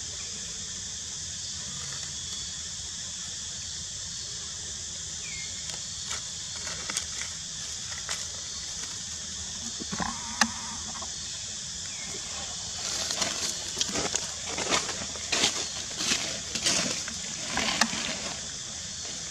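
Dry leaf litter rustling and crackling as the monkeys move and handle food on the ground: a few light crackles, then a busier run of crackling in the last third. A steady high-pitched hiss runs underneath.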